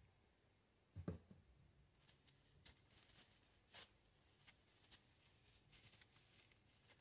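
Near silence with faint handling sounds: a soft knock about a second in, then light rustling and small clicks as a paper towel wipes a greasy air-pistol part.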